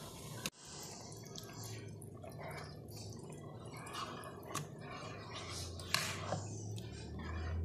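Asam pedas gravy bubbling in a non-stick pan as a plastic ladle stirs it, with irregular small pops and clicks.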